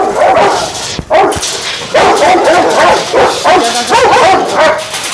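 Rottweilers whining and barking with high yelps, a loud continuous clamour of overlapping dog voices.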